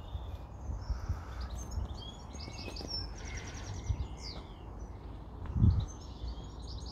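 Small songbirds chirping and singing, with short trills and falling whistle-like calls, over a steady low rumble. A single low thump about two-thirds of the way through is the loudest sound.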